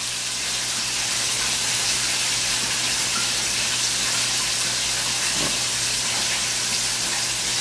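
Steady sizzling hiss of food frying in hot oil in a deep fryer, with a low steady hum underneath.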